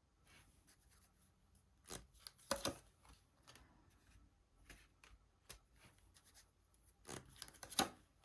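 Tarot cards being handled: faint rustling and soft card slaps, loudest about two and a half seconds in and again near the end.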